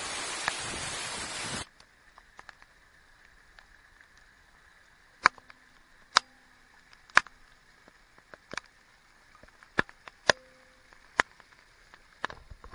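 Waterfall rushing loudly, cut off abruptly about a second and a half in; after that, near quiet broken by scattered sharp clicks, roughly one a second.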